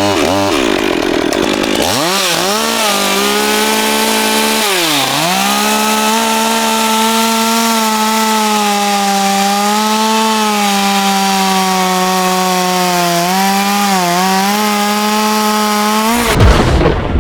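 Carving chainsaw's two-stroke engine running at high revs while cutting into a wood block, its pitch dipping briefly twice as the chain bites into the wood. The engine note stops abruptly near the end.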